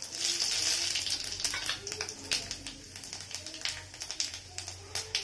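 Panch phoron seeds and dried red chillies sizzling in hot mustard oil in a kadai as the seeds are tempered: a loud hiss as the seeds hit the oil that eases after about a second, then scattered crackles and pops as they splutter.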